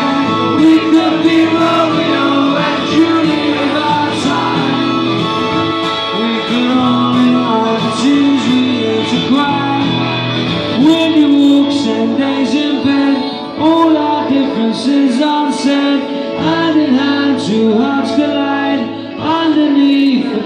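Live acoustic-set band music: a strummed acoustic guitar and an electric guitar, with a man singing into the microphone.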